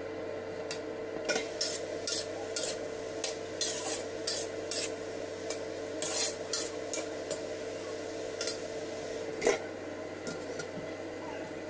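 A spatula stirring and scraping sliced green chillies in a hot wok in short strokes, about two a second, over a steady hum from the induction cooktop. Near the end there is a single sharp clank, the loudest sound, as the stainless steel lid is set back on the wok.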